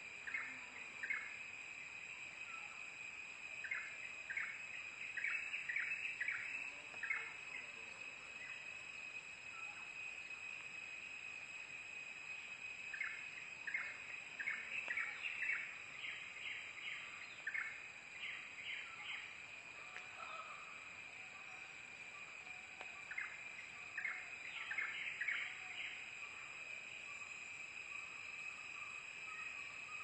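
Steady high-pitched insect trill, cricket-like, with several runs of short, quickly repeated bird chirps over it: near the start, a few seconds in, through the middle, and again later.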